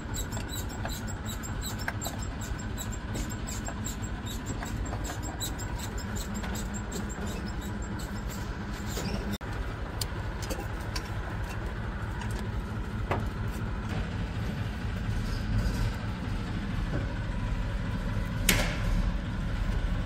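A vehicle engine runs steadily in the background as a low rumble. Light metal clicks and clinks of hand tools on engine parts sound over it, with one sharp clink about a second and a half before the end.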